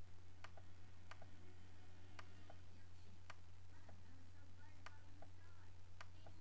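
Computer mouse button clicking about once a second, mostly as close pairs of a sharp click then a softer one, the press and release of the button. A steady low hum runs underneath.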